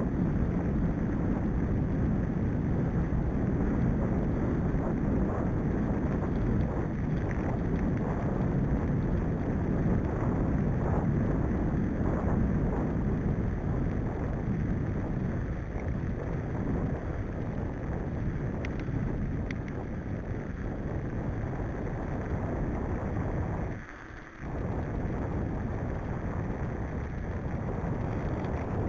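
A vehicle driving along a rough gravel track: a steady rumble of engine and tyres on stones, mixed with wind buffeting the microphone, with a brief dip in loudness about 24 seconds in.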